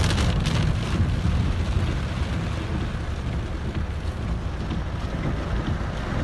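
Heavy rain beating on a moving car, heard from inside the cabin, over a steady low rumble of the car on the wet road. A cluster of sharper splashes and taps in the first second.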